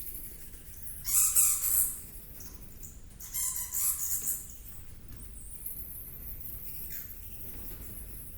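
Two harsh, screeching bird calls, each lasting about a second, with a steady low rumble and a faint high hiss behind them.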